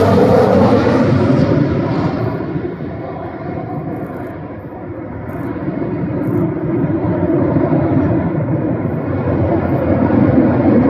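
Jet engines of a formation of KAI T-50B jets passing overhead: loud jet noise that falls in pitch and fades over the first few seconds, dips about four seconds in, then swells again.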